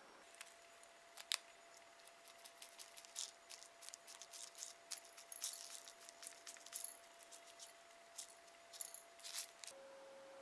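Small crunchy candy-kit topping pieces shaken from a paper packet, landing on miniature doughnuts and a ceramic plate as a scatter of light ticks and clicks, with one sharper tap about a second in.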